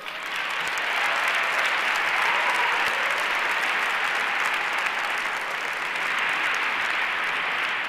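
Large auditorium audience applauding, swelling over the first second and then holding steady.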